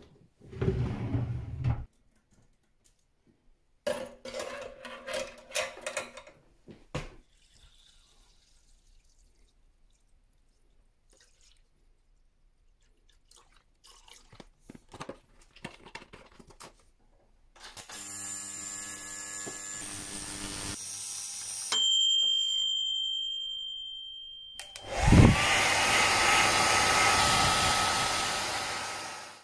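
A wooden drawer slid open, then an ultrasonic parts cleaner running with a buzz and then a steady high whine. Loudest, near the end, a blower motor spins up with a rising whine and then blows steadily as the cleaned watch parts are dried.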